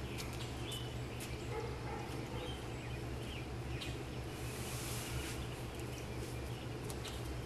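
Outdoor ambience: birds chirping faintly over a steady low hum, with a few brief clicks.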